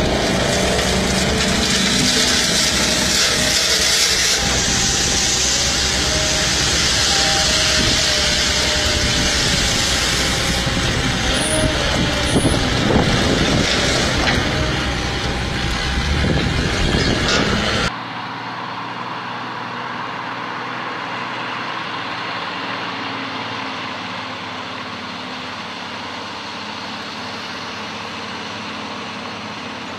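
Heavy truck engine and road noise, loud and rough, cutting off suddenly about 18 seconds in to a quieter, steady engine hum.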